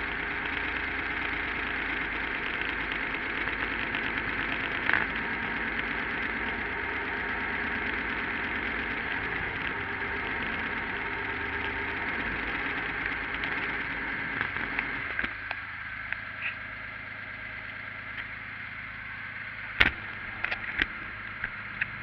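Crudebaker rat rod's engine idling steadily. About fifteen seconds in the sound drops and thins, and a few sharp knocks come near the end.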